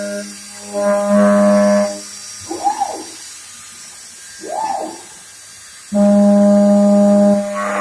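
CNC machining centre's spindle and cutter milling a white plastic block held on a rotary fourth axis: a steady humming tone with overtones while the tool cuts. The hum breaks off for a moment about half a second in, then drops out for about four seconds. In that gap come two short whines that rise and fall in pitch. Cutting resumes loudly near the end, with a hiss under it.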